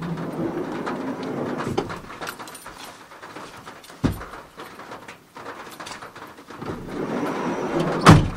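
Rustling of clothes and a tote bag as a person climbs out of a Honda N-VAN kei van, with a knock about four seconds in. Near the end the van's sliding side door is run shut and closes with a loud slam.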